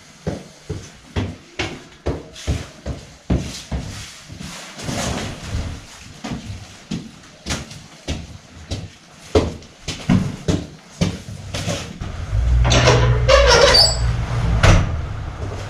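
Footsteps climbing a stone staircase, about two steps a second. Near the end a louder low rumble with rustling comes in.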